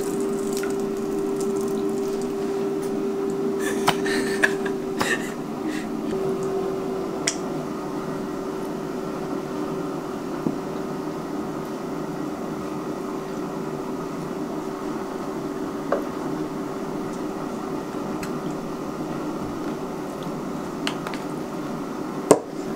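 Steady hum of a running air fryer's fan, with a few small clicks and taps from a sauce bottle and a grinder being handled over a steel bowl.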